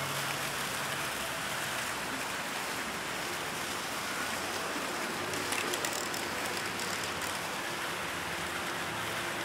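Small fountain's water jets splashing steadily, with a few light clicks about five and a half seconds in.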